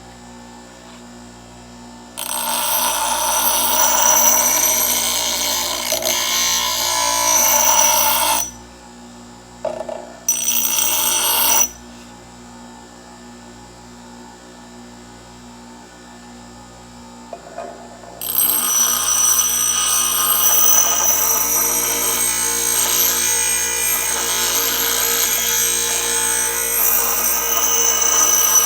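Powered grinding wheel running steadily, with a hatchet's blade pressed against it three times to sharpen it: each pass is a loud grinding hiss with a high ringing tone, the longest starting about two thirds of the way in.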